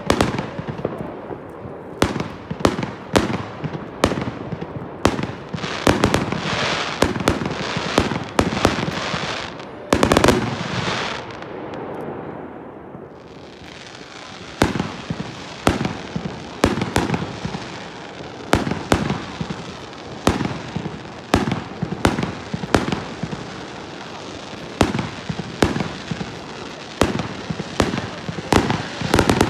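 Many New Year's fireworks going off: sharp bangs one after another at irregular intervals, several a second at times, over a constant background of crackle and hiss. There is a brief lull about twelve seconds in.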